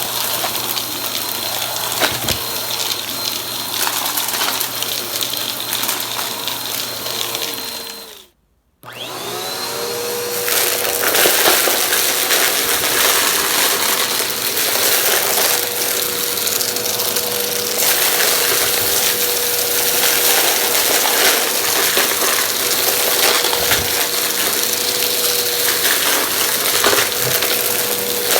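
Vacuum cleaner motor running steadily with scattered crackles and clicks of crunchy debris being sucked up. About eight seconds in the motor winds down and cuts out for a moment, then starts again and spins back up to speed.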